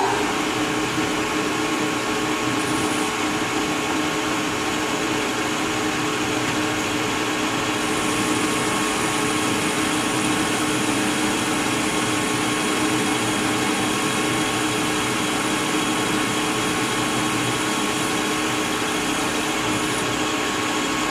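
Metal lathe running at a steady speed, its chuck spinning a rifle barrel set up for cutting the muzzle thread: a steady machine hum with a few held pitches.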